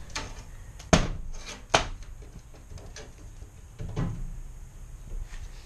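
Two sharp knocks and a softer thud from the rusty steel trailer frame as a partly cut crossmember is gripped and wiggled by hand.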